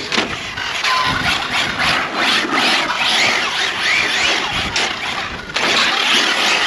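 ARRMA Felony 6S RC car driving hard on smooth concrete: the brushless motor whines in short rising sweeps as it is throttled, over a continuous rushing scrub of the tyres sliding and gripping on the surface.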